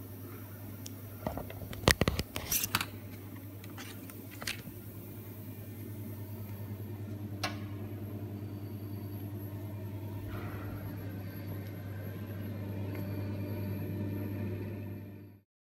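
Steady low electrical hum from an Emmegi Norma 400 TU/4 double-head saw standing between cuts, with no blade cutting. A quick cluster of sharp clacks comes about two seconds in and single clicks follow later. The hum cuts off abruptly near the end.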